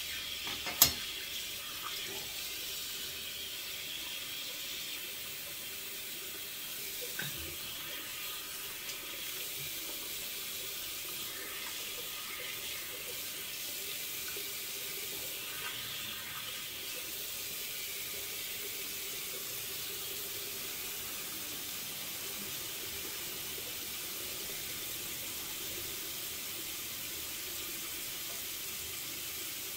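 Bathroom tap running steadily into a sink, after a sharp click about a second in.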